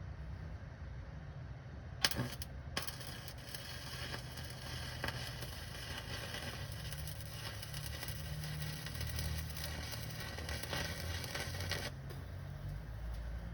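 Electric welding arc crackling and sizzling: it strikes about two seconds in, breaks off briefly, then burns steadily for about ten seconds and stops shortly before the end.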